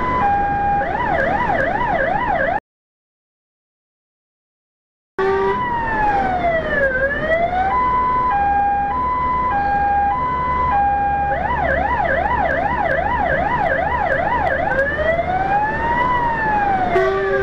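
Fire engine's electronic siren, heard from inside the truck, cycling through a two-tone hi-lo pattern, a fast yelp and a slow rising-and-falling wail over the engine's rumble, signalling an emergency run. About three seconds in, the sound cuts out completely for about two and a half seconds, and near the end a steady lower tone joins the hi-lo.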